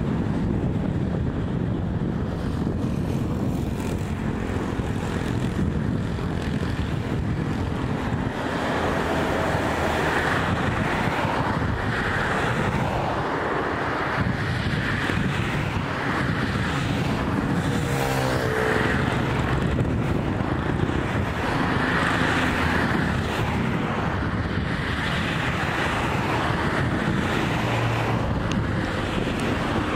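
Boeing 747-400's four jet engines at takeoff power, a steady loud noise as the airliner rolls away and climbs out, with wind buffeting the microphone.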